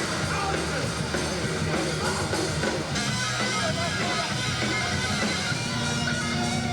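Rock music with guitar and drums, playing continuously at a steady level.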